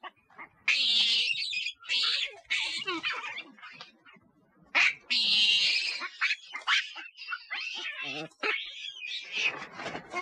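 Shrill, high-pitched calls from a tufted capuchin monkey: three loud calls each about a second long, with shorter squeaks and chirps between them.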